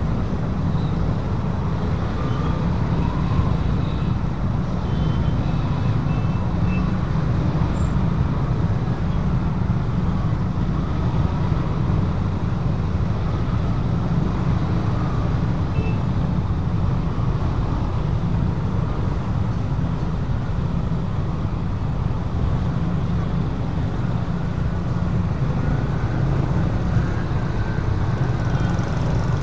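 Steady road traffic from motorbikes and cars crossing at a railway level crossing: a continuous low engine-and-tyre rumble with no single standout event.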